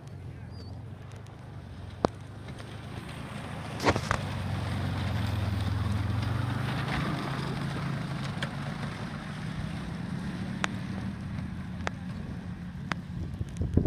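An engine running steadily with a low hum, getting louder about four seconds in and easing off a little after, with a few sharp clicks over it.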